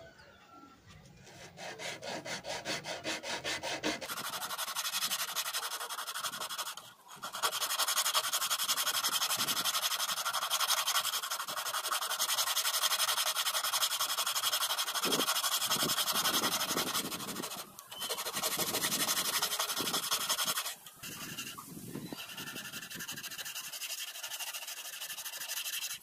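Rapid, steady sanding of metal, a dense scraping rub, in several stretches broken by a few short pauses.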